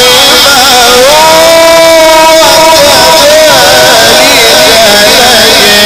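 A man's voice in melodic Quranic recitation, loud through a microphone. He holds long drawn-out notes with wavering ornaments, and the pitch steps up about a second in.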